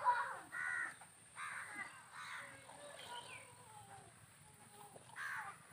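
Crows cawing: about four caws in the first two and a half seconds and another near the end, with a quieter stretch between. A faint steady high-pitched tone sits behind them.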